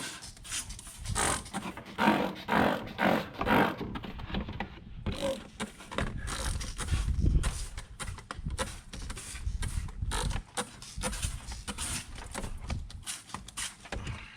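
Repeated short hissing spray bursts from keeping the area around the removed hydro-boost brake booster sprayed down, followed by a run of knocks and clicks from parts and tools being handled.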